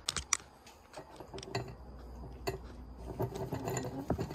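A Pomeranian eating dry kibble from a clear plastic bowl: irregular crunching, with kibble clicking and clattering against the plastic. A few sharp clicks come near the start.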